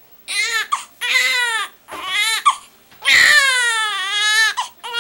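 Newborn baby crying while being swaddled: three short wails, then a longer one of about a second and a half about three seconds in, with another starting at the end.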